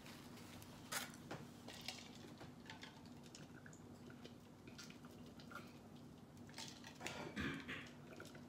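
Faint mouth and handling sounds of eating and sipping a drink close to the microphone: scattered small clicks and ticks, a little stronger about seven seconds in, over a low steady hum.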